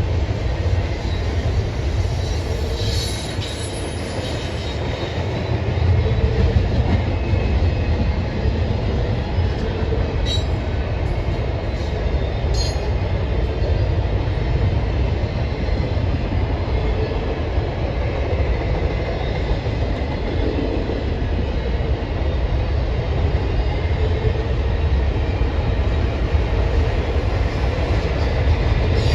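A train's cars rolling past on the rails with a steady, loud rumble, with a few short sharp clicks and squeaks of wheels on rail partway through.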